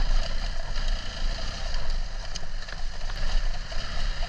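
Adventure motorcycle on the move: wind buffeting the microphone in an uneven low rumble, over the hiss and hum of the running engine.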